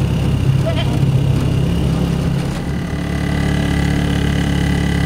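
Engine of a moving road vehicle, heard from on board, running steadily. About two and a half seconds in the engine note changes and the sound briefly dips in level.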